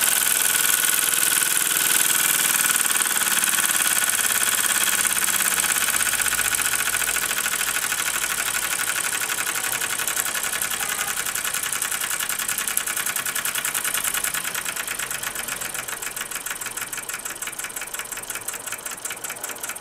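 Mamod SP6 toy stationary steam engine running fast, the rapid even beat of its single cylinder under a hiss. The hiss and overall sound slowly fade, and the individual beats stand out more clearly in the second half.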